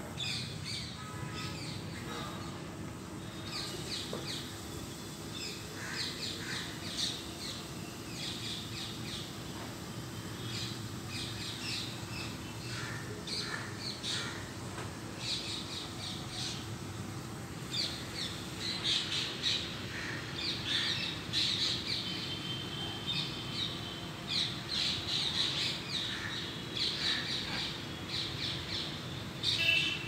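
Birds chirping: many short, high chirps and calls, growing busier and louder in the second half, over a steady low hum.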